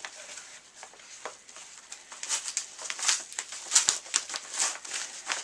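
Packaging being handled and opened: irregular rustling and crinkling, with louder crackles in the second half.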